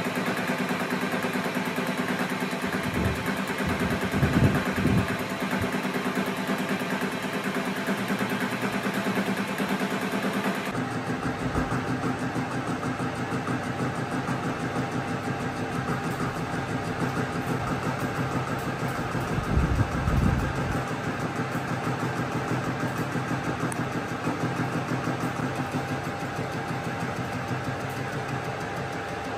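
Metal lathe running with a carbide turning tool cutting a steel bar in the chuck: a steady machine hum with the cutting noise over it, louder for a moment twice, a few seconds in and again about twenty seconds in.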